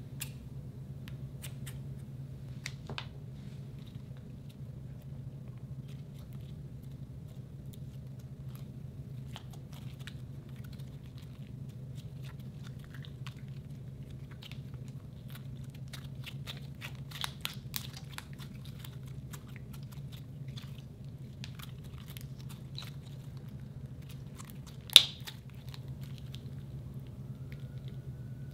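Glossy slime being kneaded, folded and stretched by hand: a continual run of small sticky clicks, crackles and pops, with one much louder sharp snap near the end, over a steady low hum.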